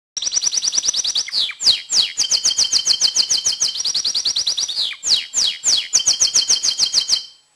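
Male domestic canary singing excitedly in breeding condition: fast trills of repeated high falling notes, phrase after phrase, that stop abruptly near the end. The song is used to bring hens into breeding condition.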